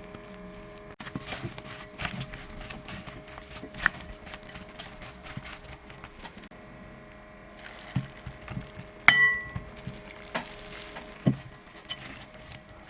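Kitchen handling sounds: scattered knocks and light clatter, with one sharp ringing clink about nine seconds in and a few dull thuds.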